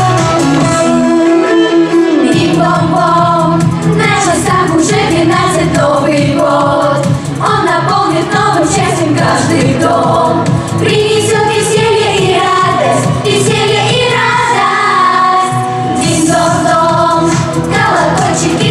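A vocal pop ensemble singing a New Year song together over a band backing track.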